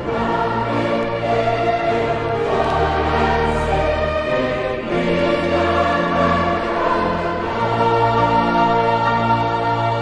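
A choir singing a hymn in long held chords that change every second or two.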